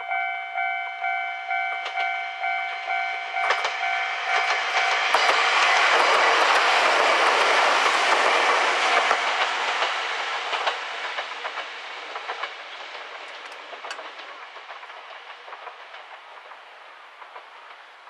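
Japanese level-crossing warning bell ringing in an even pulse, about two and a half strikes a second, stopping about four seconds in. An electric train then runs over the crossing, its wheels clacking on the rail joints. It is loudest a few seconds later and fades away slowly.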